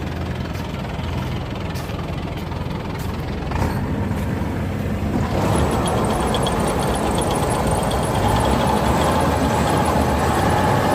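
Rice combine harvester's engine running steadily, getting louder about five seconds in, with a fast, even high ticking from its machinery after that.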